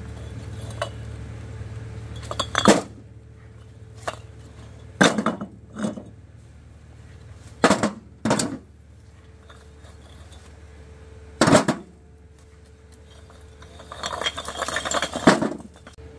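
Dishes and utensils clinking and knocking: a series of separate sharp clinks a second or more apart, with a longer clatter near the end.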